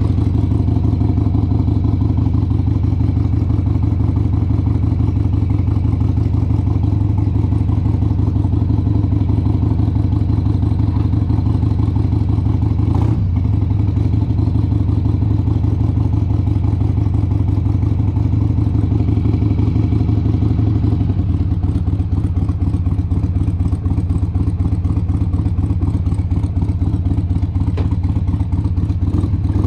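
1996 Harley-Davidson XLH883 Sportster's air-cooled Evolution V-twin idling with the bike standing still, a steady loping exhaust beat. There is a brief click about halfway through, and the beat changes slightly about two-thirds of the way in.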